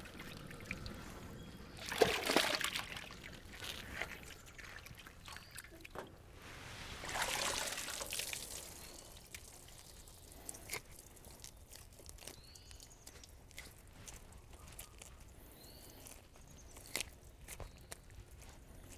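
Water sloshing and splashing in a scald pot as a chicken carcass is dunked and swished, then water pouring and dripping off as it is lifted out; the splashing is loudest about two seconds in and again around seven seconds. After that it is quieter, with faint scattered clicks.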